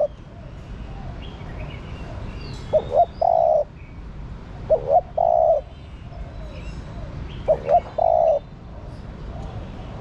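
Female spotted dove cooing: three calls about two seconds apart, each two short notes followed by a longer held coo. Faint chirps of small birds sound in the background.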